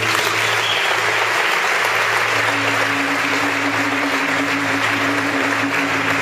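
Audience applause breaks out suddenly and carries on, over background music with long held low notes.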